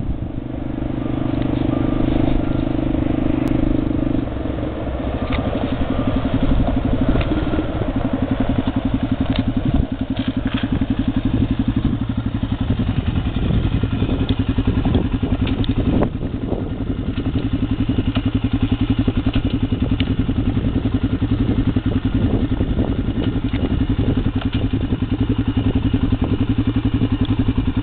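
ATV engine running steadily at a fairly even speed, with a rapid pulsing beat, and a few sharp clicks and rattles between about five and eleven seconds in.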